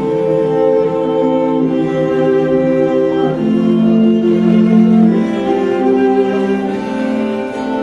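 Classical music on bowed strings, violins over cellos, playing a slow melody in long held notes that change every second or two.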